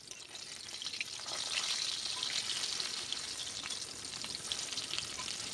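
Pieces of rohu fish sizzling and crackling as they shallow-fry in hot oil in a kadai, growing louder about a second and a half in, with a steel spatula turning them.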